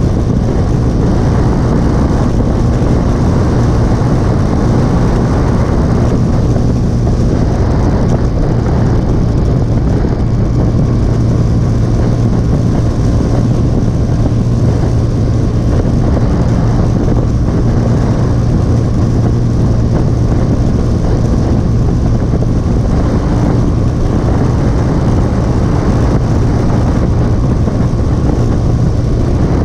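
Motorcycle engine running steadily at cruising speed, with a constant low hum and heavy wind rush over the microphone.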